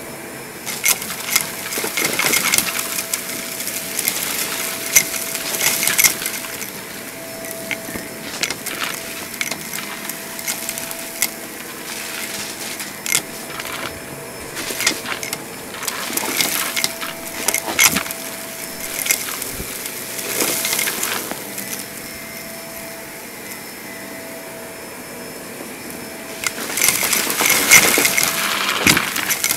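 Vacuum cleaner running with a steady motor whine while picking up natural dirt, the grit crunching and crackling through it in repeated bursts, loudest near the end.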